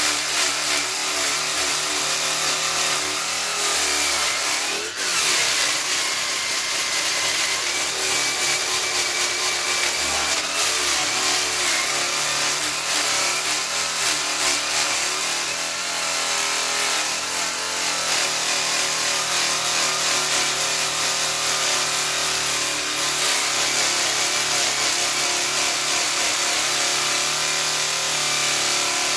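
Handheld rotary power sander with a round sanding disc running continuously against jujube wood: a steady motor whine under the scraping hiss of the disc, the pitch wavering as the disc is pressed and moved, with a brief dip about five seconds in.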